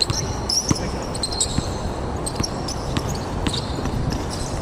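Basketball game on a court: a ball bouncing with sharp thuds several times, with short high squeaks of shoes on the floor.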